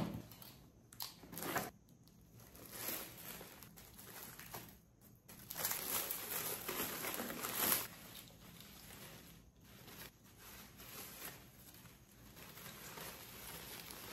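A cardboard parcel being unboxed by hand: packaging crinkling and tearing in short, irregular bursts. The longest and loudest stretch lasts about two seconds, starting about five and a half seconds in.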